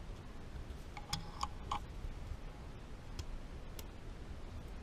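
Rebuilt Harley-Davidson four-speed ratchet-top shifter worked by hand, its ratchet mechanism clicking as it is cycled to check that it operates freely: three quick clicks about a second in, then two more a couple of seconds later.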